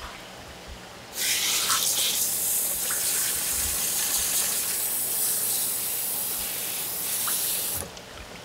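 Water running hard and splashing, turned on about a second in and shut off sharply near the end, as cuttlefish is rinsed under it.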